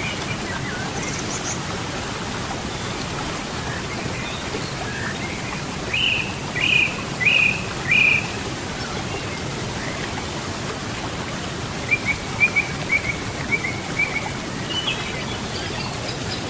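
River water running steadily, with birds calling over it: four short falling notes about six seconds in, then a quick run of short chirps about twelve seconds in.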